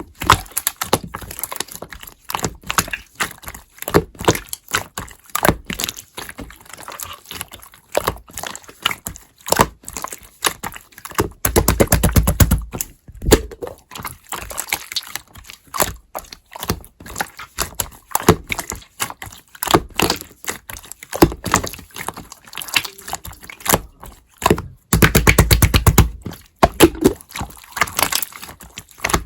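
Hands squishing, stretching and pressing slime, making a steady run of sticky clicks and air-bubble pops, with two bursts of fast crackling pops about twelve seconds in and again about twenty-five seconds in.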